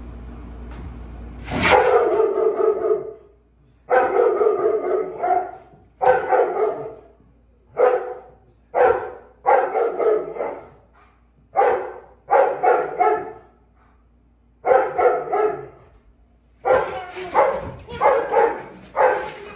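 German Shepherd barking hard at a stranger at the door, in volleys of several quick barks about a second long with short pauses between. It starts about a second and a half in, and the volleys come closer together near the end.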